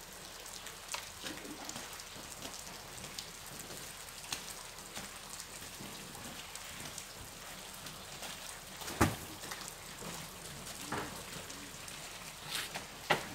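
Wet snow falling and dripping, a steady rain-like patter of many small drops over a soft hiss. There is a sharper tap about nine seconds in and another just before the end.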